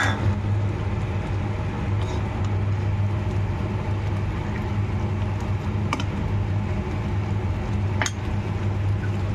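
Steady low hum under a constant hiss, with a few faint light clicks spread through it.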